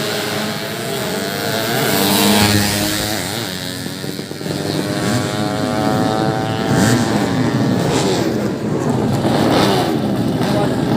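Several drag-racing motorcycle engines revving, their pitches repeatedly rising and falling and overlapping one another.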